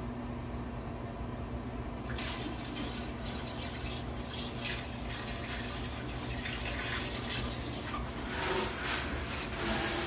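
Dark dye water poured from a plastic bucket into a toilet bowl. It splashes steadily from about two seconds in and grows louder near the end.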